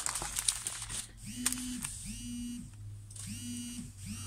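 Mobile phone vibrating with an incoming call: its vibration motor buzzes in pulses of about half a second, each spinning up to a steady buzz and winding down, three in a row with a fourth starting near the end. Light plastic crinkling in the first second.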